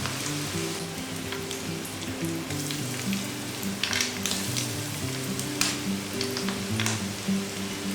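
Chicken-and-egg snacks frying in hot oil: a steady sizzle with sharp crackling pops scattered through it. Soft background music plays underneath.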